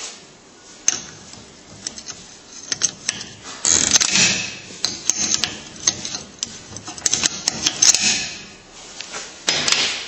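Lada Priora front strut assembly being twisted back and forth by its top mount: irregular creaking squeaks and clicks, loudest about 4 and 8 seconds in. The squeak is put down to the struts themselves.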